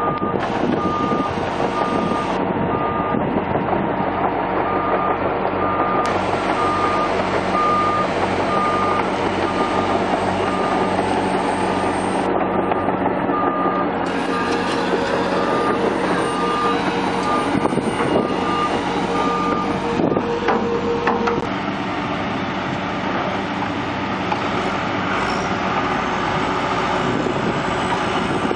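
Heavy diesel earthmoving machinery running steadily under load, with a backup alarm beeping about once a second. The beeping stops about two-thirds of the way through, while the engine sound carries on.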